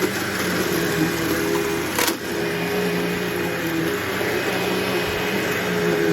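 Bissell PowerForce Bagless 6594-W upright vacuum cleaner running while vacuuming, a steady motor hum that wavers slightly in pitch. A single sharp click about two seconds in.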